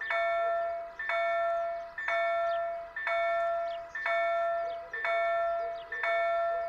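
Railroad crossing warning bell striking about once a second, each ring fading before the next. It sounds while the barriers are down and the red lights flash, warning that a train is approaching.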